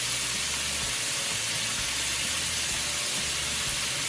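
Chicken pieces frying in hot oil, a steady sizzle.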